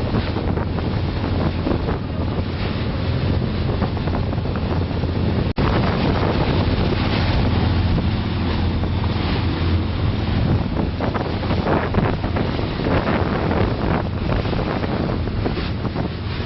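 Small passenger boat under way: its engine runs with a steady low hum while wind buffets the microphone and water rushes past the hull. The sound drops out for an instant about five seconds in.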